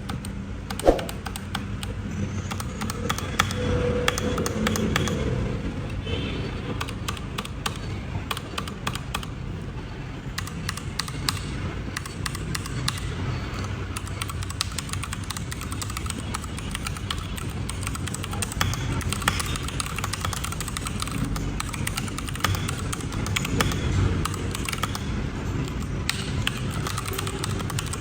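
Typing on a Spigen ArcPLAY mechanical gaming keyboard: a continuous clatter of key clicks, in quick runs at times.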